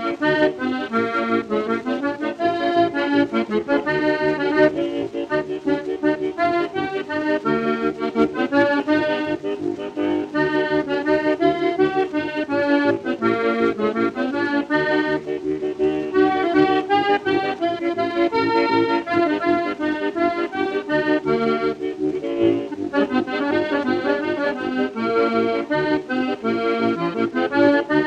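Background music: a lively instrumental tune with a fast melody of quick, short notes over a steady accompaniment.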